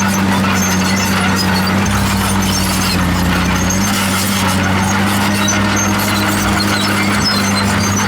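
Komatsu D51PX bulldozer working: its diesel engine runs steadily under a constant low drone, with many short high-pitched squeaks from the crawler tracks.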